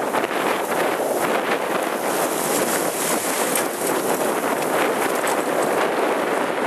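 Wind buffeting the microphone in a steady rushing noise, with water splashing past a moving boat's hull.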